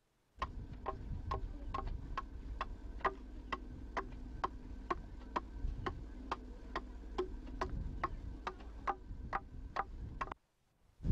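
Iron adze blade chopping into the wood of a carved mask in quick, even strokes, about three a second, over a steady low hum.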